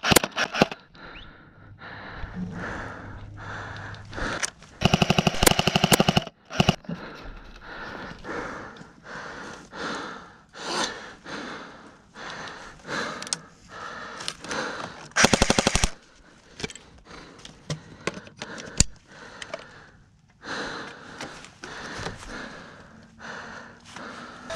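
Airsoft guns firing full-auto bursts, a rapid stream of snapping shots. Two long loud bursts stand out, one about five seconds in and a shorter one near fifteen seconds, among scattered single shots and clicks.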